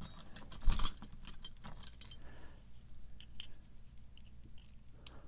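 Small metal pieces clinking and jangling, like keys or lock parts being handled, with a knock just under a second in. Scattered light metallic clicks follow.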